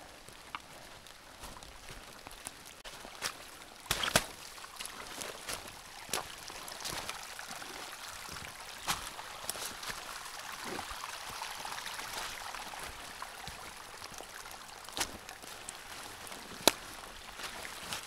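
Running water of a rain-swollen forest stream, a steady rushing hiss, with a few sharp ticks scattered through it.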